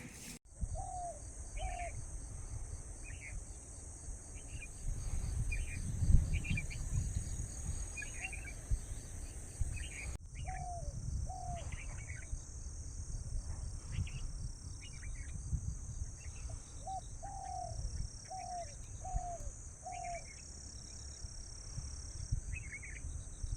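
A steady high insect chorus with a fast even pulsing, and birds calling over it: short, low, falling notes, twice in pairs and once in a run of four, and scattered higher chirps. A low rumble sits underneath.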